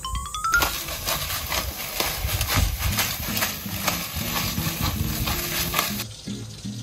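Food sizzling on a gas barbecue grill: a steady hiss with small crackles that cuts off suddenly about six seconds in. It is laid over background music and opens with a short rising chime.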